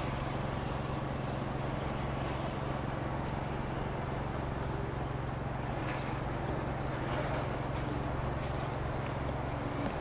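Steady low mechanical hum of a running machine over outdoor background noise; the hum cuts off suddenly near the end.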